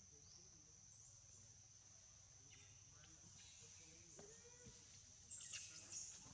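Faint, steady, high insect drone, broken near the end by a few short, high-pitched squeals from young macaques play-fighting.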